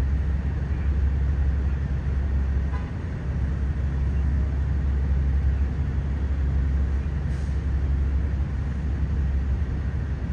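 Steady low engine rumble of idling or pumping fire apparatus.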